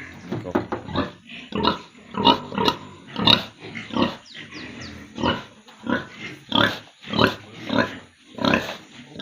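Domestic pigs calling over and over, about a dozen short, harsh grunts and squeals in quick succession.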